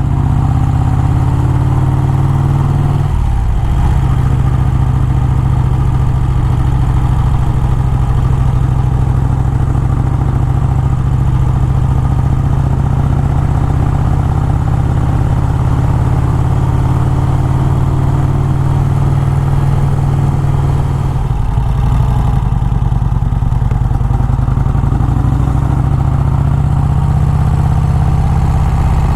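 Motorcycle engine running steadily, its note shifting about three seconds in and again about two-thirds of the way through.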